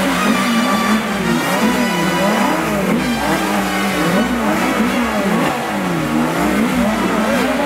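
Sports car engine being revved in repeated blips, the pitch climbing and dropping a little more often than once a second.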